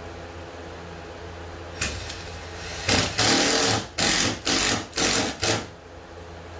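Cordless power driver running in bursts, driving screws into a vinyl canoe gunwale: a click, then one run of about a second followed by three or four short bursts.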